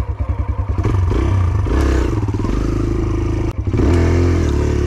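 Kawasaki KLX 140R dirt bike's single-cylinder four-stroke engine, just started, idling in quick uneven pulses, then revving up as the bike pulls away. The revs cut out for a moment about three and a half seconds in, then pick up and rise again.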